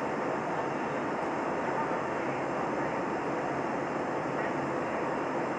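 Steady cabin noise of an Airbus A320neo in flight, heard from a window seat over the wing: an even rush of engine and airflow noise with no change in level.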